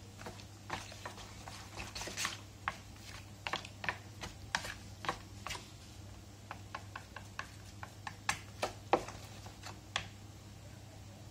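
Wooden chopsticks clicking and tapping against a bowl as diced aloe vera cubes are picked up and arranged, in short irregular clicks about two or three a second. A steady low hum runs underneath.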